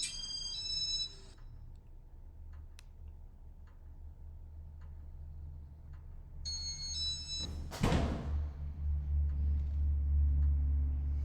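Casablanca Spirit of Saturn ceiling fan in demo mode: its control gives a short run of stepped electronic beeps at the start and again about six and a half seconds in. Just under eight seconds in there is a sharp click, and the motor's low hum then grows louder.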